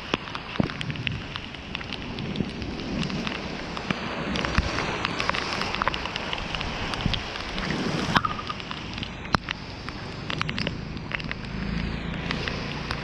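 Steady rain falling, with many sharp ticks of drops hitting close by. A low rumble comes in near the end.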